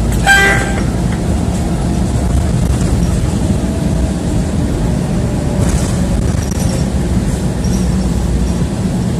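City bus running, heard from inside the cabin: a steady low rumble of engine and road noise. Just after the start comes one short, loud pitched ding.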